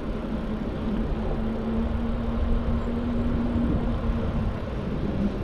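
Mountain bike rolling over fresh asphalt, its knobby tyres giving a steady hum over a low rumble of wind on the microphone.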